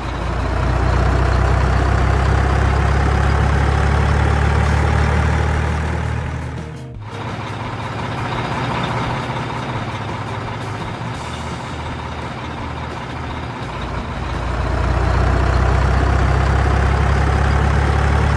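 Heavy truck engines running close by, a loud low rumble with a faint, slowly rising whine. The sound breaks off sharply about seven seconds in and comes back weaker, then swells loud again near the end.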